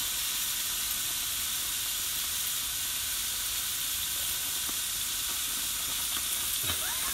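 Skin-on chicken thighs sizzling steadily on a hot gas grill plate, fat spitting as they sear.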